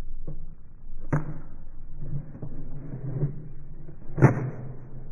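Two sharp gunshot bangs at an indoor range, about three seconds apart, each with a short ring-out; the second is louder. A low steady hum runs beneath them.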